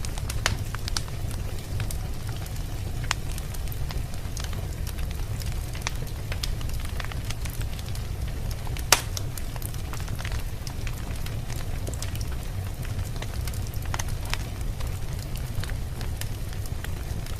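Wood fire crackling in a fireplace: scattered small pops and snaps over a steady low rumble, with one louder pop about nine seconds in.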